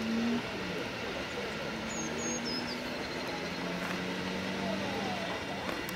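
Steam locomotive and its coaches coming slowly into a station, a low steady rumble with no clear exhaust beat. A bird chirps briefly about two seconds in.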